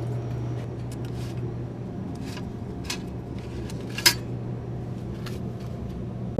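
Steady low hum of a vehicle engine running, with a few light clicks and one sharper click about four seconds in.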